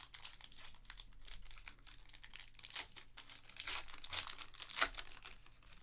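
Foil wrapper of a 2021 Panini Elite Extra Edition baseball card pack being torn open and crinkled by hand: a steady run of crackles, with several louder rips in the second half.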